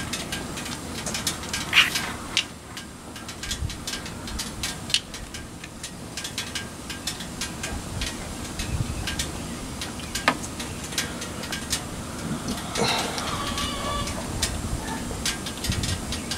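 Steak starting to sizzle on a Pit Boss gas griddle that went on cold and is heating up with all three burners on high, giving scattered small pops and crackles over a low steady rumble.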